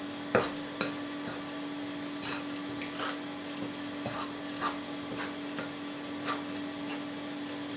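A spoon stirring flour into yeast water in a bowl to mix a dough, clicking and scraping against the bowl in irregular strokes about every half second.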